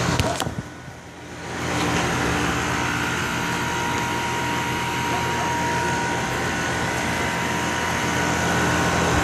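Newly installed Goodman 3-ton split-system condenser running just after start-up, its compressor and fan giving a steady hum while the system pressures stabilize. The sound dips for about a second near the start, then holds steady.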